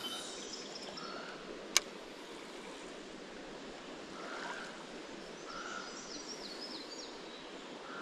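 Steady flow of a shallow creek, with a single sharp click about two seconds in.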